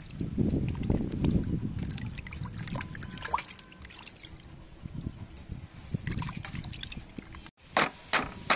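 Hands rubbing and sloshing pieces of cow nose in a metal basin of water, with splashing and trickling, loudest in the first couple of seconds. Near the end, after a sudden break, a cleaver strikes a wooden chopping board a few times.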